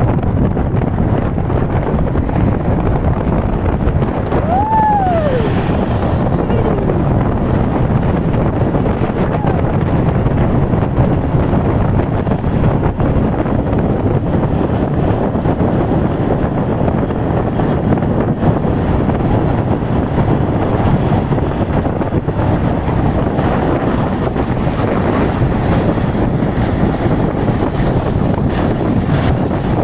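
Keeway K-Light 202's V-twin engine running steadily at road speed, with wind rushing over the helmet-mounted microphone. About five seconds in, a short tone rises and then falls.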